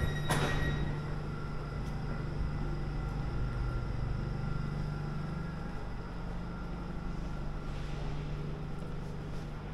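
Steady low mechanical hum of an Elizabeth line underground train or station, with a short hiss about half a second in. Some faint higher whining tones stop just after it.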